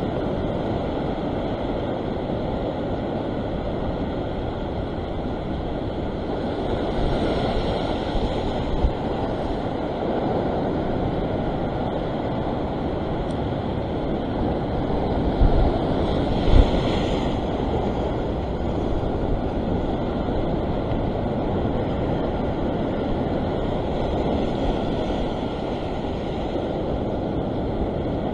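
Ocean surf washing over a rocky shore, with waves breaking and foaming louder about seven and sixteen seconds in. Steady wind rumble on the microphone, with a couple of low bumps around the second break.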